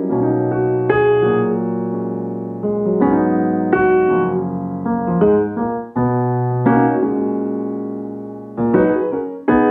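Background music played on a piano-like keyboard: slow notes and chords that ring out and fade, with new ones struck every second or so.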